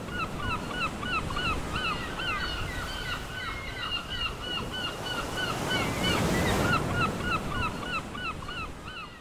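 A flock of birds giving many short, overlapping calls, over a rushing noise that swells about six seconds in and fades near the end.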